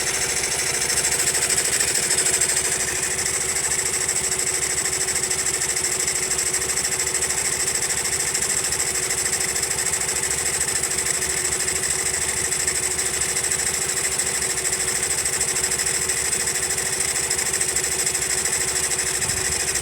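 Honda Monkey's single-cylinder four-stroke engine running steadily, with a rapid, even mechanical knocking noise, a little louder for a moment one to three seconds in. The noise is abnormal, and a tappet (valve clearance) adjustment has not cured it.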